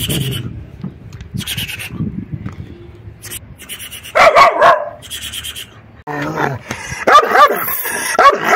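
Dogs barking: one loud bark from a black-and-tan puppy about four seconds in, then, from about six seconds, an adult dog barking over and over.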